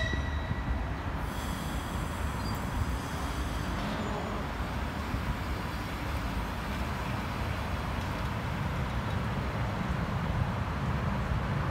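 EP3D electric multiple unit pulling out of the platform and rolling past: a steady low rumble of wheels on the rails as it gathers speed. A thin high whine sounds from about one to three seconds in.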